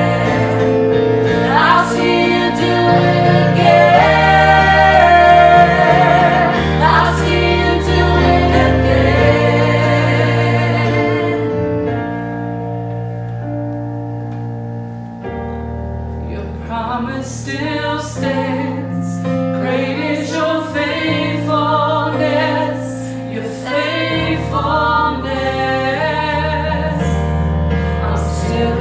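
Worship music: a band with singers and a choir in a gospel-style song. About halfway through it drops to soft held chords for a few seconds, then the voices and full band come back in.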